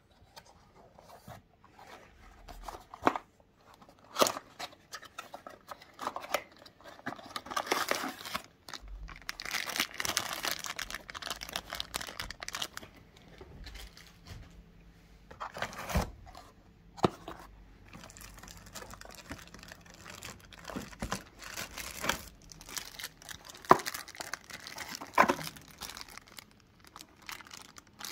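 Packaging being unwrapped and handled: irregular crinkling and tearing, densest in a stretch near the first half, with sharp knocks and clicks scattered through.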